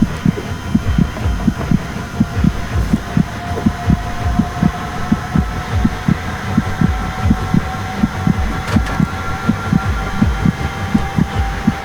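Rapid, fairly regular low thumping, about four beats a second, over a faint steady whine that creeps slowly up in pitch.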